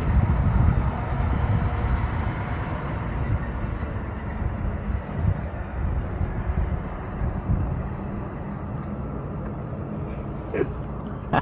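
Wind buffeting the phone's microphone: a gusty low rumble that rises and falls.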